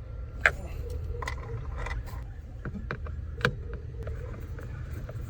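Small clicks and taps of a Phillips screwdriver and screws working against the plastic steering column cover, with two sharper knocks, one about half a second in and one about three and a half seconds in, over a steady low rumble.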